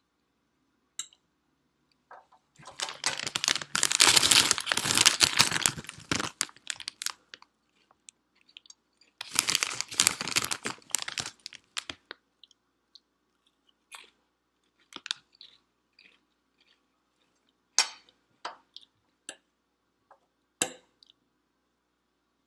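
Potato chips crunched and chewed close to the microphone: two long stretches of loud crunching, then softer scattered mouth clicks and smacks.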